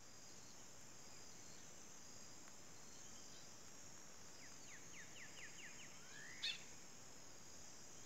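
Red-capped cardinal singing: a quick run of about eight short upswept notes from about four and a half seconds in, then a rising whistle that ends in one sharp, loud note. A steady high buzz of insects runs underneath.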